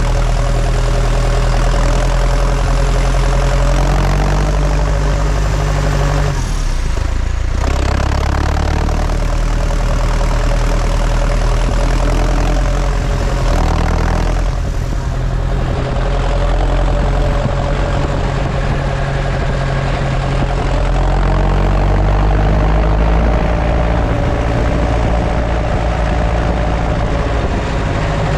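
New Holland T5050 tractor's four-cylinder turbo diesel engine running under way, heard close to its upright exhaust stack. It eases off briefly twice, about seven seconds in and again about fifteen seconds in, then picks up again.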